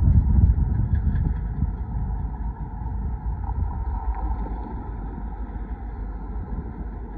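Low vehicle rumble, loudest in the first second and easing off gradually.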